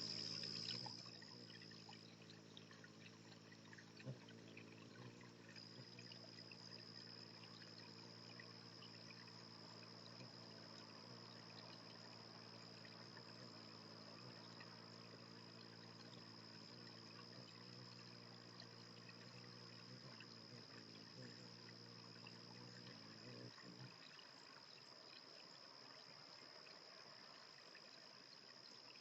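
Faint trickling water, with a steady low hum underneath that stops about 24 seconds in and a thin steady high tone throughout.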